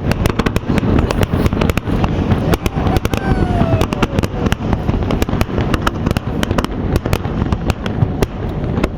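Fireworks display: a dense, continuous crackle of many quick pops and bangs, with a falling tone drawn out over a couple of seconds about three seconds in.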